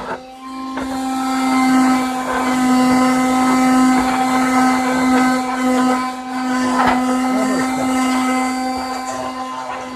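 Electric power sander running steadily on a wooden trim piece: a strong motor hum with sandpaper hiss over it, dipping briefly just after the start.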